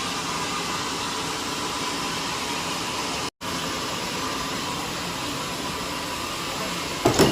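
Steady hissing machine noise of a running sawmill, broken by a sudden split-second dropout about a third of the way in. A short loud sound falling in pitch comes right at the end.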